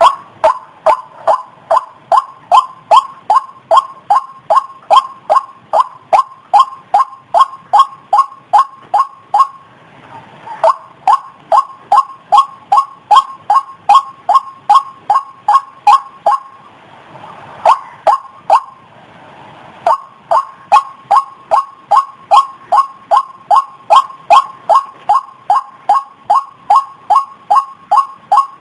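White-breasted waterhen calling a long, even series of repeated notes, about two to three a second, with a short break about ten seconds in and a longer one around seventeen to twenty seconds.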